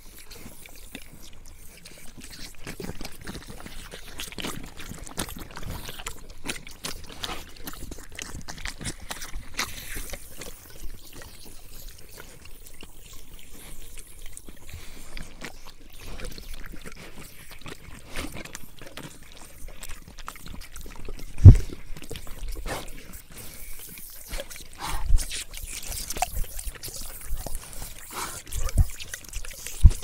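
Several St Bernards lapping and slurping water from a running garden hose nozzle held at their muzzles: many quick, wet laps over the trickle of the water. A few louder thumps come in the second half, the loudest about two-thirds of the way through.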